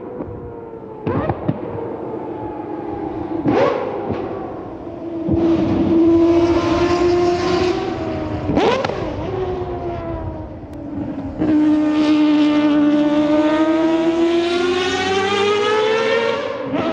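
Mazda 787B's four-rotor R26B rotary engine at parade-lap pace, its high wailing note rising and falling with the throttle. Several sharp cracks come in the first half, and near the end it holds a long note that climbs and then drops away.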